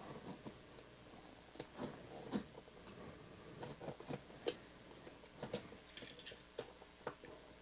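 Faint handling noises: scattered small clicks and brief rustles as a sports-card box and its packaging are opened and cards are handled.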